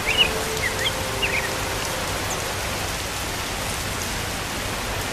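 Steady rain pouring down, with a few short high chirps in the first second or so.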